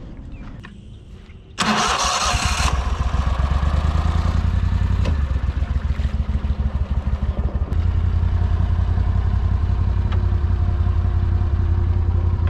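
Boat's mud motor starting with a sudden loud burst about a second and a half in, then running steadily at low speed.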